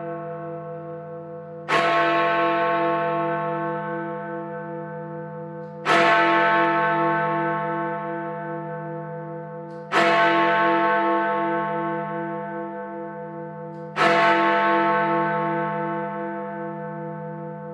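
Big Ben, the great hour bell of the Westminster clock tower, striking the hour: four heavy strokes about four seconds apart, each ringing on and fading slowly with a pulsing hum, over the fading ring of the stroke before.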